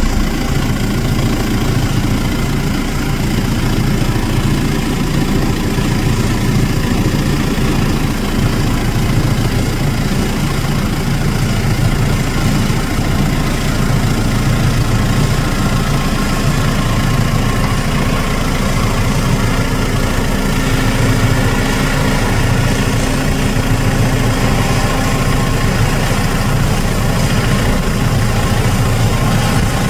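Combine harvester running steadily while harvesting barley: a continuous heavy engine drone with machinery hum and no change in load.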